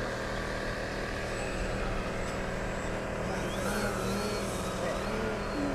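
Radio-controlled aerobatic model airplane's engine droning steadily in flight, a little stronger in the second half as the plane pulls up vertically. Warbling chirps are heard over it in the second half.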